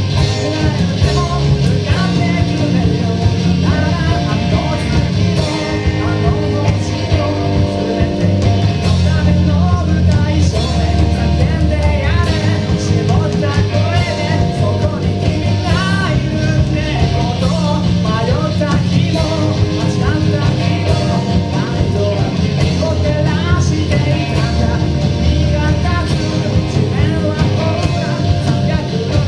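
Live rock band playing a song with a singer over the full band.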